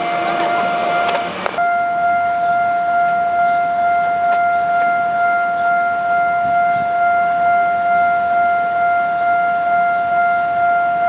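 Railway level-crossing warning alarm sounding one steady, unbroken high tone. The noise of a passing train dies away in the first second and a half.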